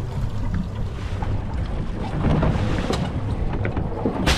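Boat motor running steadily at idle, with wind on the microphone and a sharp click near the end.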